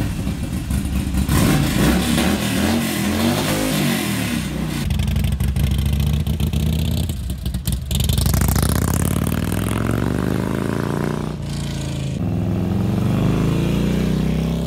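V-twin cruiser motorcycle engine running and revving, its pitch climbing as the bike accelerates and dropping off as it rides past. The sound changes abruptly a few times.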